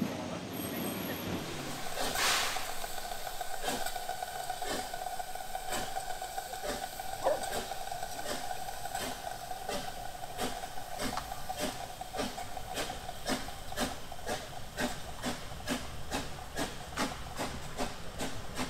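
Narrow-gauge Rasender Roland steam locomotive working past with its coaches. About two seconds in comes a sharp hiss of steam, followed by a steady high tone held for about ten seconds. Under it runs a regular beat of chuffs and rail knocks that quickens toward the end.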